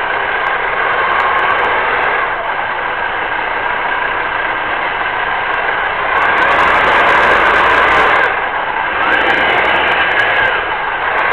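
Radio-controlled toy tank's electric drive motors and tracks running steadily as it drives, heard close up through the camera riding on it; the sound grows louder for a couple of seconds past the middle.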